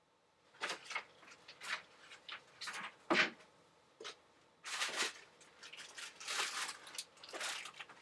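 Objects being handled: irregular rustling and scraping with a couple of sharp knocks, as a bottle of painting medium is searched out and picked up.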